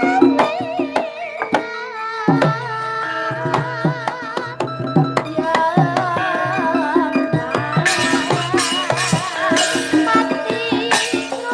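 Javanese gamelan playing: steady ringing tones from the metallophones under frequent hand-drum strokes from the kendhang, with a wavering melodic line above. From about eight seconds in, bright noisy strokes join and the music gets busier.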